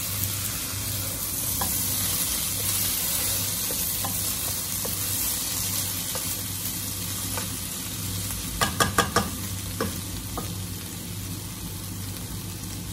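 Wooden spatula stirring avial, vegetables with crushed coconut, in a non-stick pot over a gas flame: a steady sizzle with scattered scrapes and taps against the pot. About nine seconds in there is a quick run of four louder knocks.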